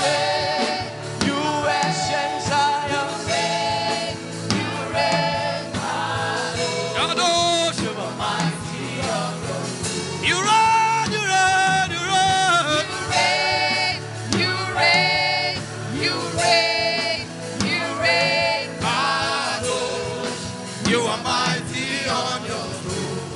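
Gospel worship music: voices singing a slow chant over instrumental backing.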